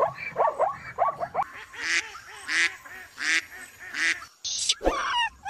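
Zebras calling with quick, falling yelps, then after about a second and a half a change to waterbirds (gulls, ducks and swans) calling, with a loud call repeated about every 0.7 s.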